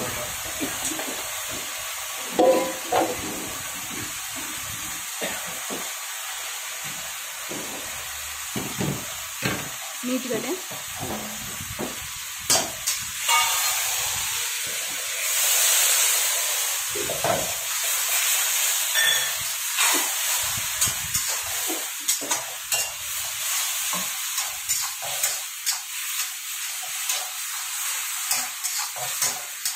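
Chicken chilli frying in a black wok: a steady sizzle, with a long steel spatula scraping and clinking against the wok as the pieces are stirred. The sizzle swells louder for a couple of seconds about halfway through.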